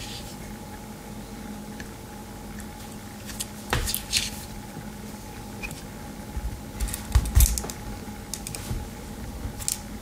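Victorinox Ranger Swiss Army knife being handled: scattered clicks and light rubbing as its tools are moved, in a few short clusters.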